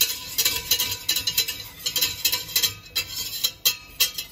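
Wire whisk scraping and clinking around the bottom of a stainless steel pot, stirring a butter-and-flour roux for a bechamel sauce, in quick rhythmic strokes about three a second.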